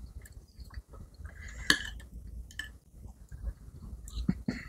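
Spoons and dishes clinking and tapping at a dinner table as sambal is scooped from a stone mortar: scattered light knocks, one sharper clink a little under two seconds in and two more taps near the end.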